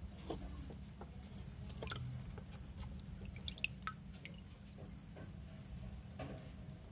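Water dripping and splashing into a shallow plastic tub as a hand lifts a baby turtle out of it: a scatter of small irregular drips and splashes.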